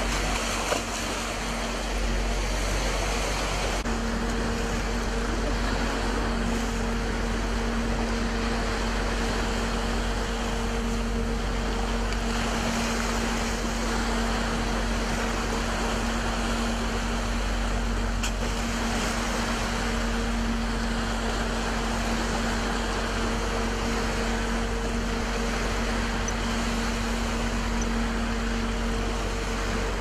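A moving boat: a steady rush of water along the hull with a steady engine hum that comes in a few seconds in, and one short click under a second in.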